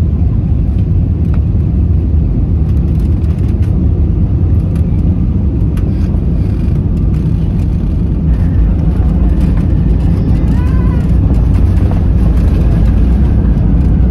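Cabin rumble of an Airbus A320-232 with IAE V2527 engines landing: the main gear touches down about four seconds in, then the jet rolls out on the runway with its spoilers up. The rumble gets louder about eight seconds in.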